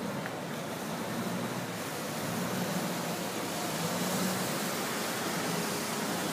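Canal water bus passing close below: a steady rush of churning wake and a low engine hum that slowly grows louder as the boat comes nearer.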